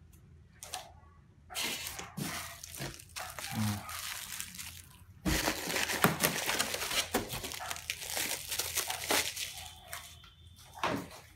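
Black plastic wrapping crinkling and rustling as it is handled and pulled out of a styrofoam box: scattered rustles at first, then continuous loud crinkling from about five seconds in, easing off near the end.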